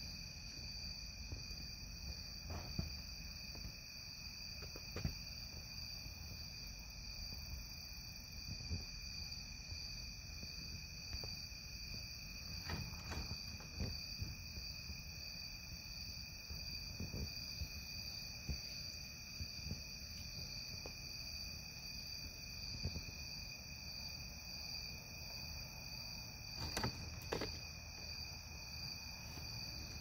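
Steady chorus of night insects singing in several high pitches at once, with scattered short knocks and clicks, the loudest a pair near the end.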